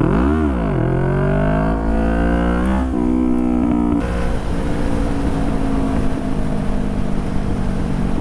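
Motorcycle engine snapped up in revs and dropping as the clutch bites, then accelerating hard with rising revs for a wheelie attempt, shifting up about three seconds in. From about four seconds it runs at steady revs under rushing wind noise.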